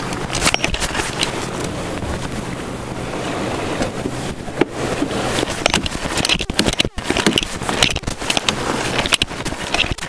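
Wind buffeting the microphone and water rushing along the hull of a C&C 39 sailboat under way in choppy water. Sharp clicks and knocks through the second half come from a crewman working a sheet winch with its handle.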